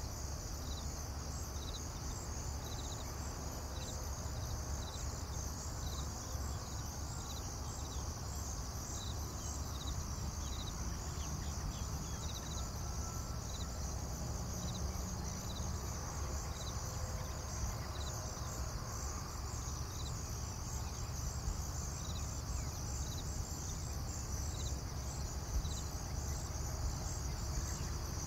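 Insects chirping steadily: a continuous high shrill with short chirps repeating at an even pace, over a steady low rumble.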